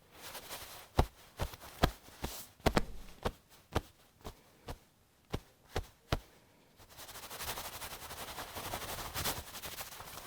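A sound effect: about a dozen sharp, irregular snaps or knocks over five seconds, then a few seconds of steady crackling noise.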